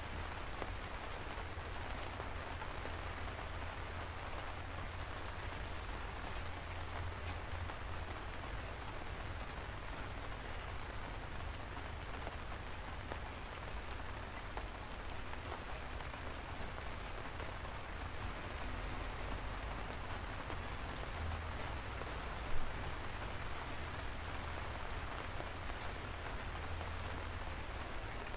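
Steady rain falling: a dense, even hiss with scattered sharp drop ticks and a low rumble underneath. One brief louder hit about three quarters of the way through.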